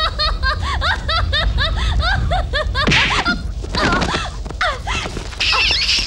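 A woman's rapid, repeated high-pitched cries, close to laughter, about four or five a second and thinning out after a few seconds. About three seconds in there is a short, rough crash as someone falls in the dust.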